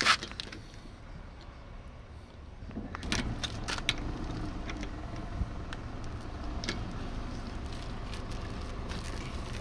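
Light metallic clicks and clinks of a socket and breaker bar being worked onto a car wheel's locking bolt. A steady low vehicle rumble sets in about three seconds in and runs on under them.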